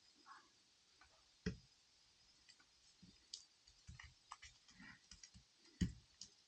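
Small repair tools clicking and tapping against the opened phone's frame and internal parts: scattered light clicks, with two sharper knocks about a second and a half in and near the end.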